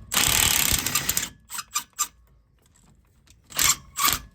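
Impact gun hammering for about a second on a brake caliper's Torx guide bolt, then a few light clicks and two short bursts near the end.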